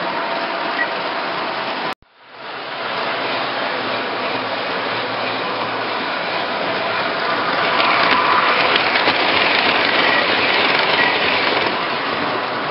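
O-gauge three-rail model trains running on the layout's track: a steady rolling, rattling noise with a faint hum of motors. It cuts out abruptly about two seconds in, fades back, and is louder for a few seconds in the middle.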